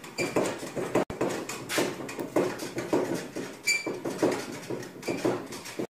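Microfiber cloth rubbed back and forth over the glossy painted hood of a Chevrolet Cruze, squeaking and swishing in strokes about twice a second, with a sharper squeak near the middle.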